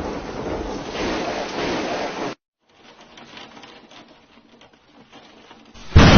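Heavy rain with a dense rushing hiss that cuts off abruptly about two seconds in. It is followed by fainter rain pattering with scattered drip ticks, then a sudden loud burst of noise near the end.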